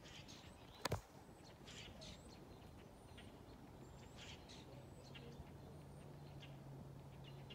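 Faint, scattered chirps of small birds over a quiet background, with one sharp click about a second in. A low, steady hum comes in about halfway through.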